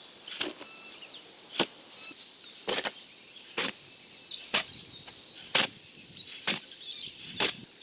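A hoe cutting and pulling through a sand-and-cement mortar mix in a mortar box: a short scraping stroke about once a second, eight strokes in all.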